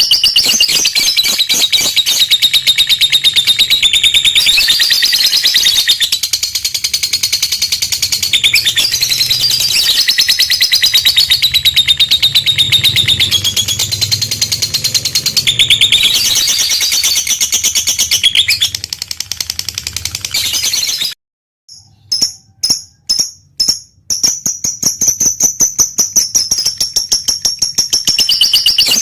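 Lovebird giving its long 'ngekek' call: a fast, unbroken chattering trill of sharp high notes. About three-quarters of the way through it stops briefly, comes back in a few short bursts, then runs on again.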